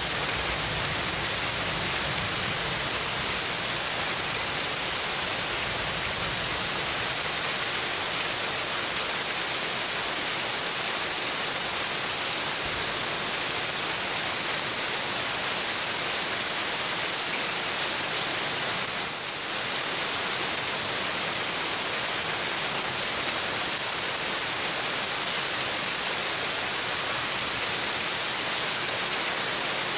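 Steady rain falling in a thunderstorm, an even hiss with no breaks.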